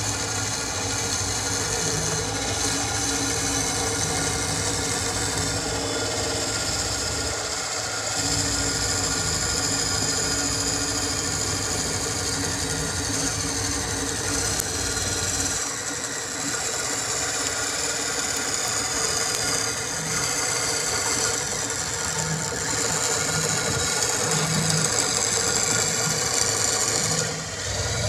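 Electric drill running steadily, spinning a hickory dowel through a cutting die that shaves it down to ramrod size, wood rasping against the cutter. The motor's whine slowly sinks in pitch through the second half and briefly eases near the end.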